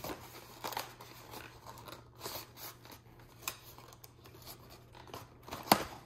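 Packaging being handled and opened by hand: scattered light rustles, crinkles and clicks, with a sharper click near the end.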